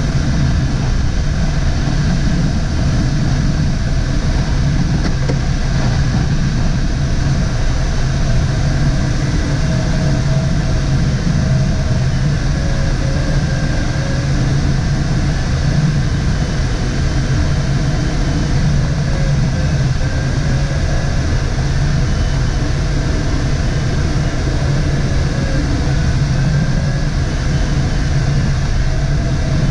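Steady rush of air around the canopy of a DG505 glider on aerotow, under the drone of the tow plane's engine ahead. A faint wavering whine runs through it.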